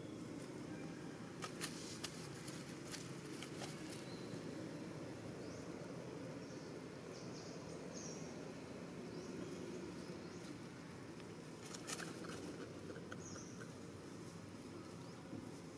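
Faint outdoor ambience: a steady low hiss with dry leaf litter crackling in two short spells, a couple of seconds in and again near the end, and a few brief high chirps.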